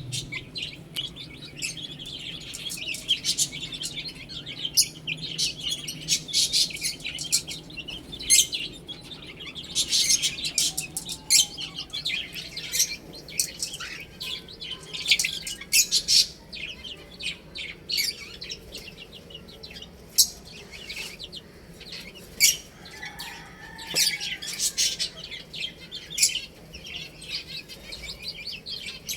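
Baby chickens (chicks) chirping continuously, many short, sharp peeps overlapping from several birds.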